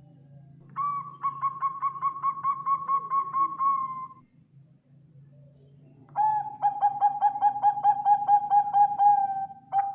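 Zebra dove (Bangkok perkutut) cooing in long phrases of rapid, pulsing coo notes, several per second. The first phrase runs from about one to four seconds in at a slightly higher pitch. A second, lower phrase follows from about six seconds, and another begins at the very end. A faint steady low hum lies beneath.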